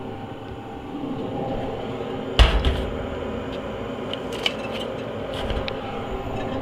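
A single heavy knock about two and a half seconds in, then a few light clicks and taps, over a steady low hum.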